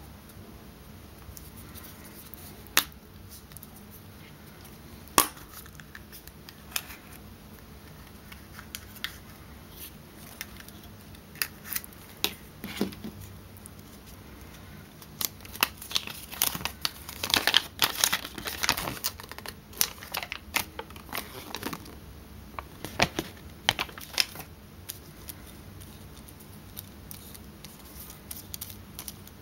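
Hands handling a Kinder Surprise egg's yellow plastic capsule, its paper leaflet and foil wrapper: a few sharp plastic clicks, then a busy stretch of crinkling and rustling of paper and foil in the middle, with scattered clicks after.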